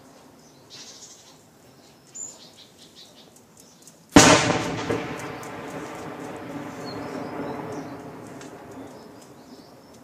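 A single sudden heavy blast about four seconds in, from artillery or another heavy weapon, followed by a long rolling rumble that slowly dies away. Faint bird chirps are heard before it.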